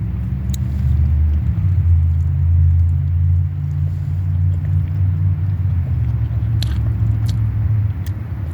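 Steady low rumble, shifting slightly in pitch a couple of times, with a few brief clicks of eating.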